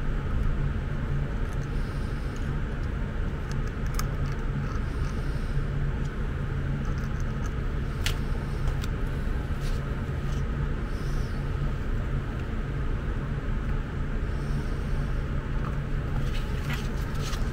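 Steady low hum of background machinery, with a few small sharp clicks. Near the end comes a cluster of clicks as the two halves of a plastic remote-control case are pressed together.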